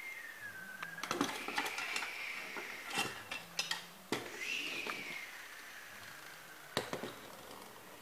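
Toy plane's friction motor whirring in a high whine that falls away as it spins down, heard three times, with sharp clacks of plastic toys set down on a tabletop.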